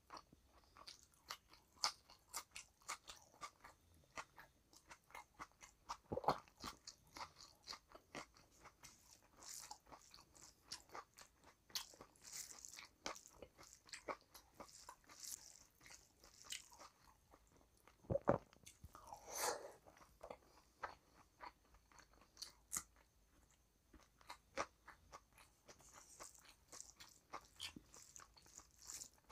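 Close-miked chewing of a person eating rice and curry by hand: a steady run of short mouth clicks and smacks, with a few louder bites now and then.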